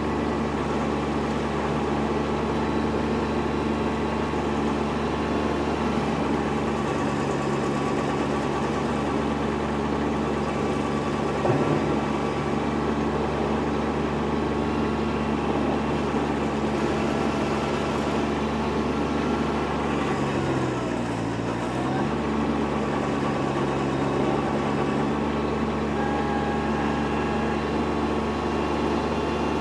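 Kubota B2601 compact tractor's diesel engine running steadily, driving a Woodland Mills WG24 PTO stump grinder as its cutting wheel grinds into a stump. There is a single knock about a third of the way in. About two-thirds of the way through, the engine note dips and then comes back up.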